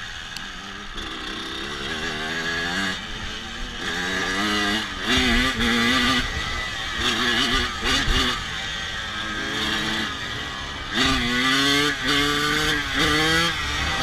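Dirt bike engine running and being revved in repeated short blips, its pitch rising and wavering with each blip.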